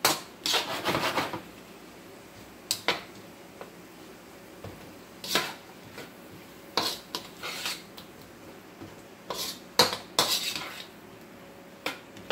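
A spatula scraping and clattering against a wok in irregular bursts of strokes as sliced bamboo shoots and water chestnuts are stirred.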